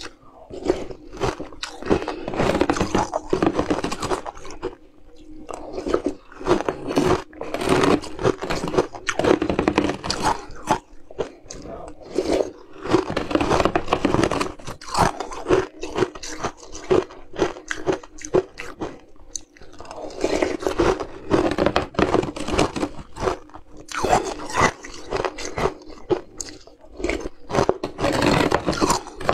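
Close-up crunching and chewing of spoonfuls of frozen ice scraped from a block with a metal spoon, in dense runs of crisp crunches broken by short pauses.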